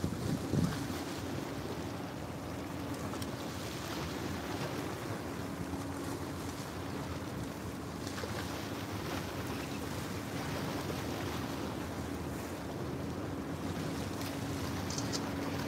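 Small waves washing against a rocky shoreline, with wind buffeting the microphone and the steady drone of a motorboat's engine out on the water.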